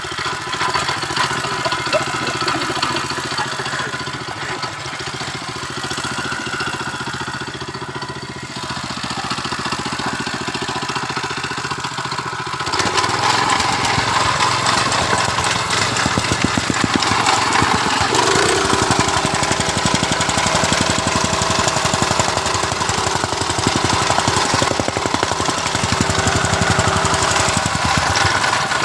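Soil compactor's small engine running, with a rapid pounding beat. About thirteen seconds in it gets louder and busier, as if throttled up to working speed.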